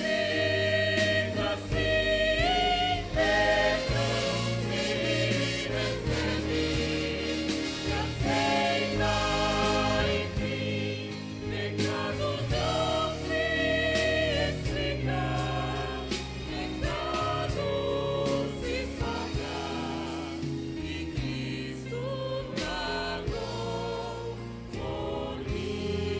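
Church vocal group of women singing a gospel song together in chorus, over steady low instrumental backing.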